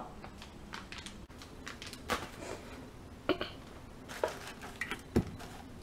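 Items in a cardboard sample box being handled: a few light taps and knocks as a metal drink can among the products is touched and lifted. A duller knock about five seconds in is the loudest.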